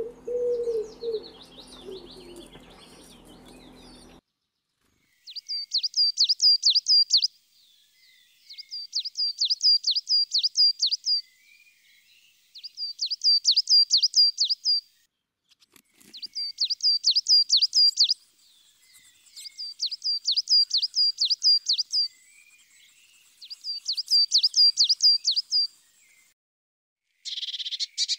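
Birdsong: a songbird repeats the same short phrase of about ten quick, high notes six times, each phrase about two seconds long with pauses between. During the first few seconds a dove coos low before the sound breaks off briefly.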